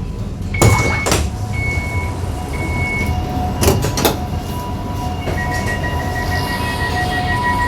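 Kaohsiung light rail tram's door signals over the low rumble of the tram: three evenly spaced high beeps about a second apart with sharp door clunks, then a lower tone sounding on and off and a fast repeating beep from about two-thirds of the way in.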